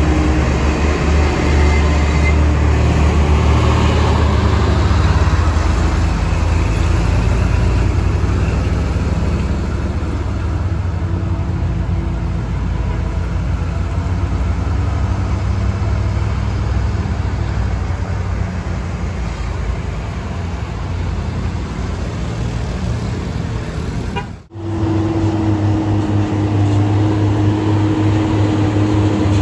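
Heavy trucks' diesel engines running under load as they climb a steep grade, a continuous low drone. The sound drops out for a moment about three-quarters of the way through, then picks up again.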